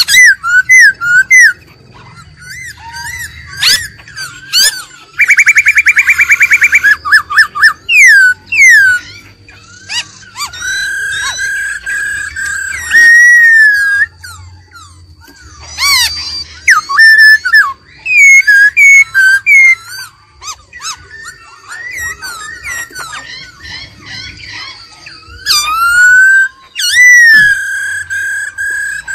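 Black-throated laughingthrush singing a loud, varied song of clear whistled phrases that slide up and down in pitch, with a rapid trill of repeated notes a few seconds in.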